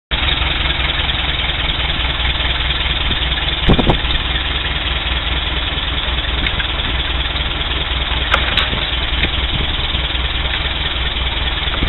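An engine idling steadily, with two brief sharp knocks, about four and about eight and a half seconds in.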